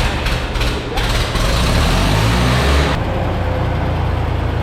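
An engine being started: a loud burst of noise for about two seconds, then it settles to a steady low running hum about three seconds in.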